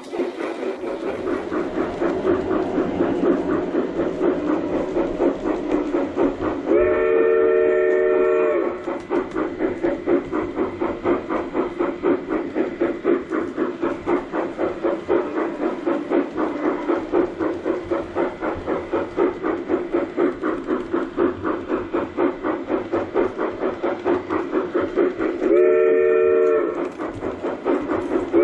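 G-scale model steam locomotive's onboard sound unit playing a rhythmic steam chuff as the train runs on the track. A chime steam whistle blows for about two seconds some seven seconds in, and again shortly before the end.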